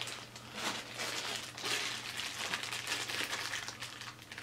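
Small plastic bag crinkling and crackling in irregular bursts as it is handled and opened to get at GoPro mount adapters.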